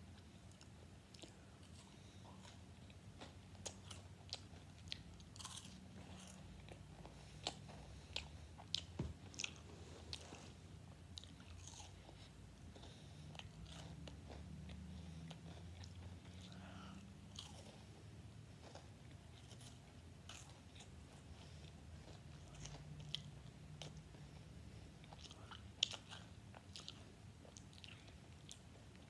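Close-up crunching and chewing of a white chocolate KitKat wafer finger, with crisp crunches coming in irregular clusters and one sharp crunch near the end.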